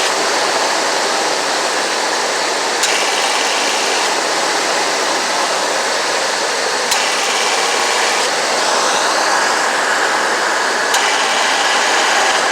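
1991 Ford E250's 5.8-litre V8 running under a steady rush of engine and fan noise, with the AC compressor clutch clicking in and out three times about four seconds apart. The compressor is short-cycling, which the owner puts down to low refrigerant.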